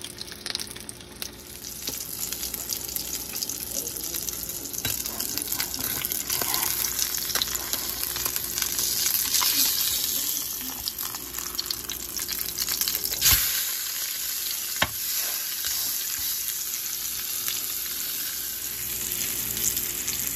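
Salmon fillet sizzling in melted butter in a hot grill pan, a steady frying hiss. A sharp knock about two-thirds of the way in and a lighter one soon after as the fillet is turned with a spatula.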